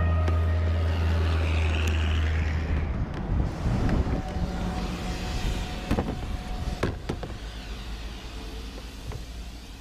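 The held final notes of background music end about three seconds in. Then comes a steady outdoor rumble like traffic or wind, with a few sharp clicks, fading out.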